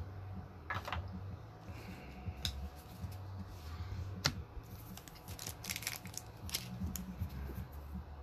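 Trading cards being flipped through by hand: a scattered series of soft clicks and brief rustles as cards slide against one another, with a cluster of quick flicks a little past the middle, over a low steady hum.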